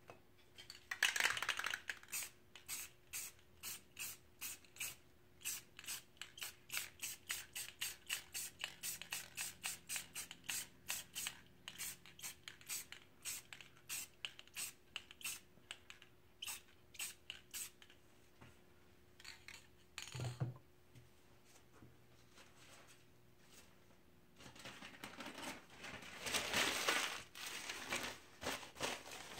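Aerosol spray-paint can hissing in many short, quick bursts, about three a second, with a longer burst about a second in. A single knock about two-thirds of the way through, then a denser stretch of rustling noise near the end.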